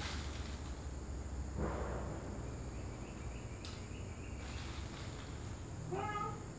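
A cat meows once near the end. A steady high-pitched hum runs underneath, and a brief rustle comes about a second and a half in.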